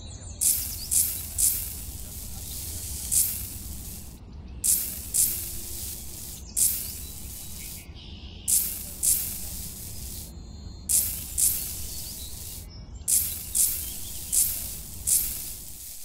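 Miniature hand trowel scraping and scooping sand, heard as a series of short hissing scrapes, often two or three in quick succession about half a second apart, with pauses between.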